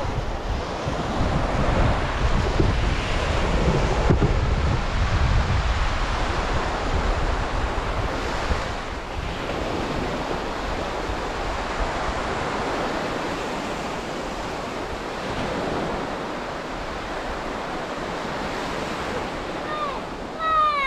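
Surf breaking on a sandy beach, with wind buffeting the microphone in heavy gusts over the first several seconds before it settles into a steady wash. A brief high call sounds near the end.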